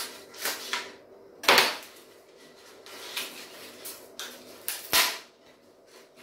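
Wooden clothes hangers with metal hooks knocking and clattering as they are handled and one is taken off the set. A series of irregular sharp knocks, the loudest about one and a half seconds in and again near five seconds.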